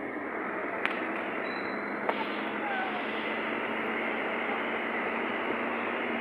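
Steady road and wind noise from a moving car, with two sharp clicks about one and two seconds in.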